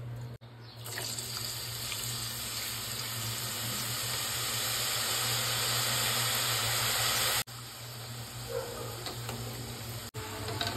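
Thin potato slices deep-frying in hot oil in a pot: a steady sizzling hiss that builds louder, then breaks off sharply about seven seconds in and carries on quieter.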